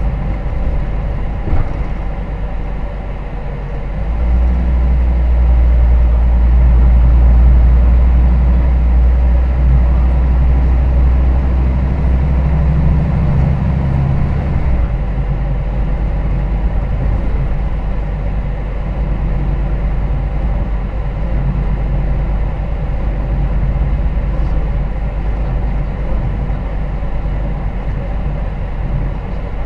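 Hino Rainbow HR route bus heard from inside the cabin while running: steady diesel engine and road rumble. The engine note swells about four seconds in and falls back suddenly about halfway through.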